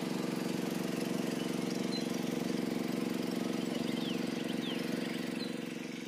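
Motor of a long wooden river boat running steadily under way, easing off slightly near the end.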